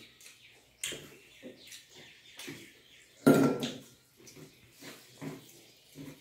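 Close-up eating sounds: chewing and lip-smacking as rice and curry are eaten by hand, in irregular short bursts, with fingers working the food on steel plates. One much louder knock comes a little over three seconds in.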